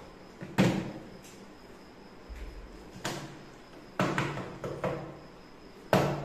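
A small plastic water bottle flipped and landing on a wooden table: about four sharp knocks, each dying away quickly, spaced a second or more apart.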